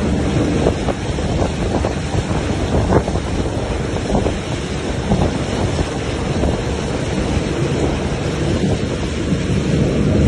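Wind buffeting the microphone on a motorboat running at speed, over the rush of the churning wake and the boat's outboard motor.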